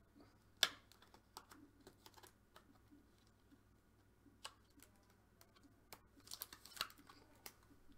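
Faint scattered clicks and light taps, with one sharper click about half a second in and a quick flurry of clicks near the end.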